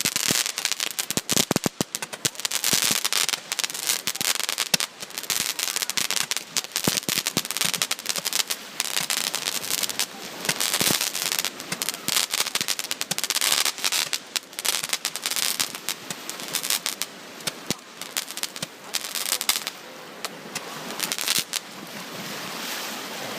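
Fireworks crackling and popping in a dense, rapid barrage of sharp cracks, thinning out near the end into a steady rushing noise.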